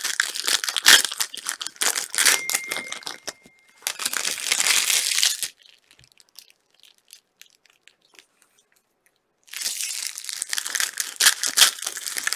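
Trading-card pack wrappers being torn open and crumpled by hand, crinkling in quick dense bursts. There is a pause of a few seconds in the middle, and the crinkling starts again near the end.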